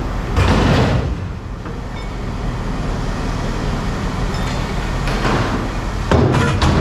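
An engine running steadily at idle, with two loud, noisy clatters, one about half a second in and one near the end.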